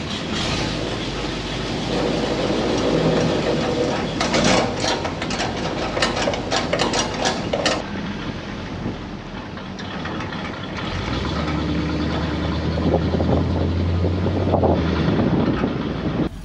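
1965 International pickup's carbureted engine running as the truck drives off, heard from the bed, with a quick run of clicks and rattles from about four to eight seconds in. From about eleven seconds in a steady low engine note builds as the truck pulls away.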